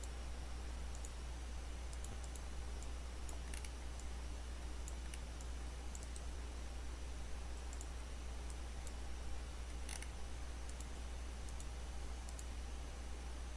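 Computer mouse clicks, sparse and irregular, over a steady low electrical hum and microphone hiss.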